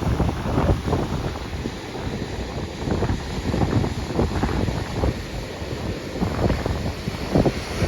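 Wind buffeting the microphone in uneven gusts, with ocean surf washing underneath.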